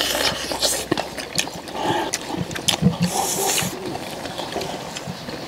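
Close-up eating sounds: chewing and sucking meat off pork back bones, with scattered clicks of chopsticks and tongs against steel bowls and a short sucking slurp about three seconds in.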